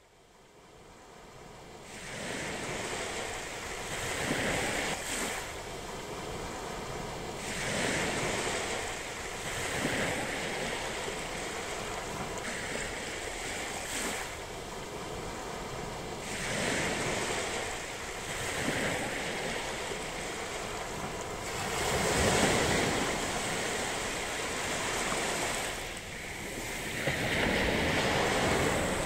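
Sea surf: small waves breaking and washing up over the sand at the water's edge, a rushing hiss that swells and eases every two to three seconds. It fades in over the first two seconds.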